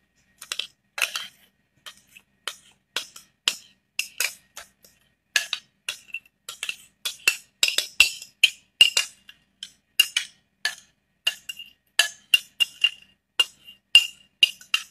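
A metal spoon clinking and scraping against a mixing bowl as the mayonnaise dressing is scraped out. Irregular sharp clinks, two or three a second, some with a short ring, coming thicker in the second half.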